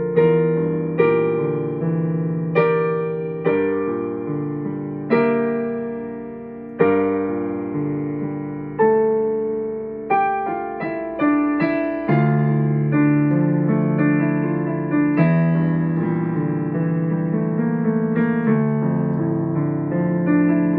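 Solo piano playing a slow piece: chords struck about once a second and left to ring and fade. About halfway through, a quick run of notes leads into denser, more continuous playing.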